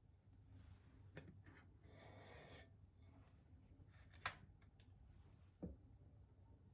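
Faint handling sounds: a brief scraping rub about two seconds in, a sharp click a little after four seconds, and a soft low knock near the end.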